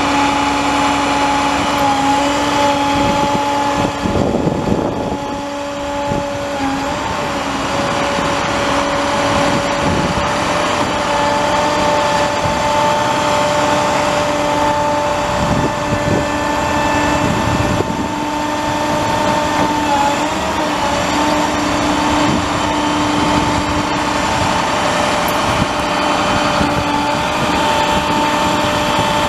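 The 2009 International 7500 truck's MaxxForce 9.3 L inline-six turbo diesel running steadily with a constant whine that dips briefly in pitch a couple of times. A few dull thumps come and go.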